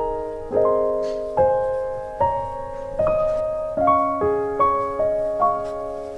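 Slow, gentle background piano music: a new chord struck a little more often than once a second, each ringing and fading before the next.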